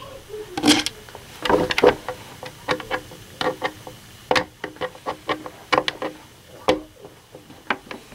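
Irregular plastic clicks and knocks from an RC monster truck being handled while a part is pushed back into place, some with a brief hollow ring.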